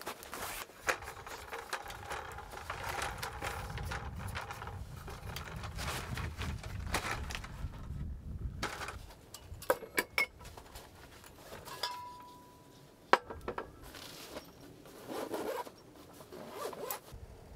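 Camping gear being handled: rubbing and rustling of a padded camp cot and tent fabric, then a few sharp clicks and knocks as a folding camp table is set up and things are set on it.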